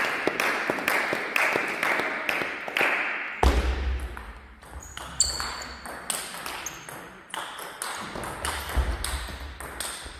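Table tennis rally: the plastic ball clicking in quick succession off the bats and the table top, many sharp strikes echoing in a large sports hall.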